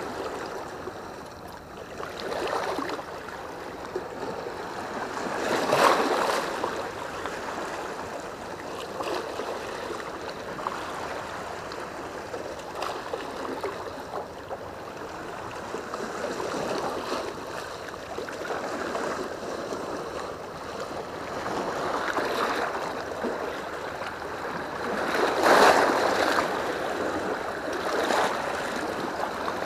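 Sea waves washing and splashing against the rocks at the foot of a seawall, a steady wash that swells into two louder splashes, about six seconds in and again near the end.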